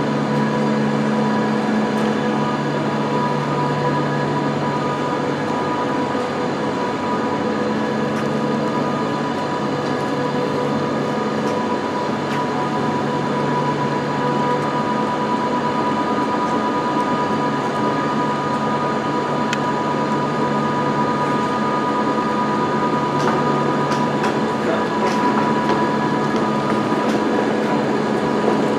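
A train's machinery humming steadily: several steady tones, low and mid-pitched, over a constant noise, with no wheel clatter.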